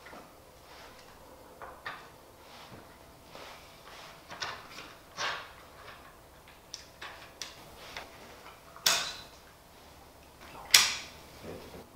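Scattered clicks and knocks of plastic castor fittings and a lightweight aluminium chair frame being pushed together and handled, with two sharper knocks near the end.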